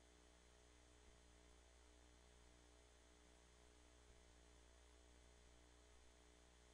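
Near silence: a steady low electrical hum with a faint hiss.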